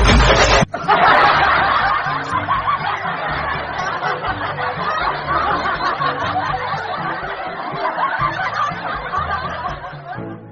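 Many voices snickering and laughing together, a dense laugh track that starts abruptly about a second in and fades out near the end, over a faint music bed.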